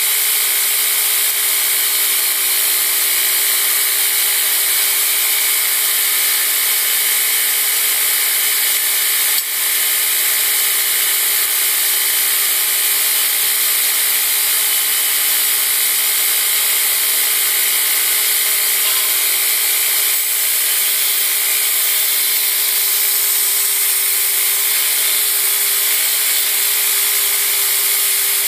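Belt grinder running steadily with no steel on the belt: a constant high hiss over a steady hum.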